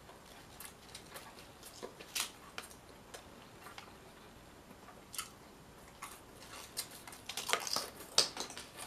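Close-up chewing of a mouthful of Italian sub sandwich with dill pickle potato chips in it: irregular small crunches and mouth clicks, loudest near the end.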